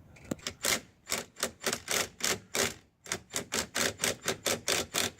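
Ratchet wrench clicking in quick, even strokes, about three to four a second, with a brief pause near the middle: the HMMWV steering wheel's retaining nut being tightened down.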